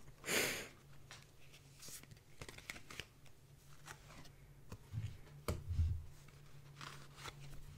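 Tarot cards being shuffled by hand and dealt onto a wooden tabletop: a brief swish of sliding cards near the start, light taps and clicks, and a few dull thuds about five seconds in as cards are set down.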